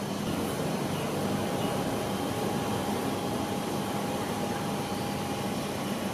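Steady city street traffic noise with a low hum underneath. A faint, steady high tone is held for about four seconds in the middle.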